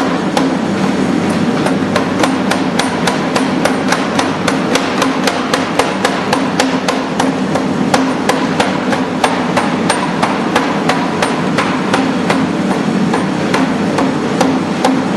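Hammer forging steel for carving tools: regular blows, about three a second, over a steady background noise with a low hum.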